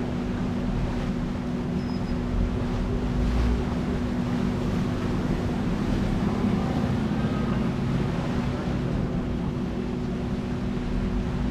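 Passenger ferry's engine running with a steady low hum, over the rush of water and wind.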